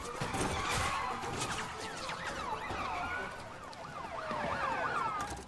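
Several sirens wailing at once, overlapping, their pitch sweeping up and down. The sweeps come quicker in the second half.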